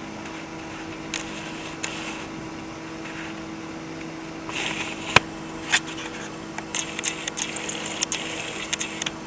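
Steady low electrical hum under handling noise: a sharp click about five seconds in, then a run of small clicks and rustles near the end as a camera and circuit board are handled on the workbench.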